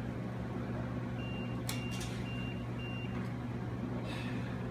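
Four short, high electronic beeps from the checkout counter, evenly spaced about half a second apart, over a steady low hum in the room, with a couple of brief clicks or rustles in the middle.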